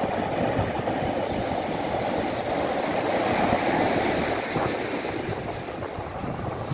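Surf breaking and washing up a pebble beach, a steady rushing that swells a little about halfway through, with wind buffeting the microphone.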